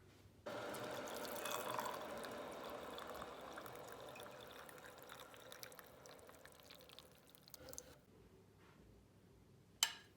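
Water running, starting suddenly about half a second in, slowly fading and stopping about eight seconds in. A single sharp click near the end.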